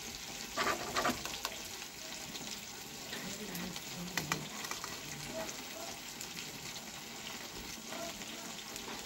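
Steel spoon scraping and clicking against a steel plate as it cuts through a soft spiced dough, over a steady hiss. There is a short scrape about a second in and a sharp click at about four seconds.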